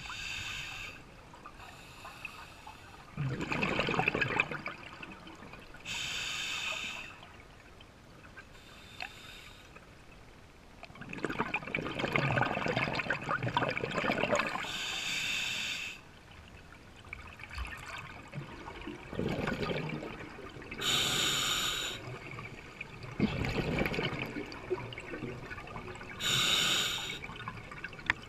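A scuba diver breathing through an open-circuit regulator underwater: about four slow breaths, each a short hissing inhale through the regulator followed by a longer rush of exhaled bubbles.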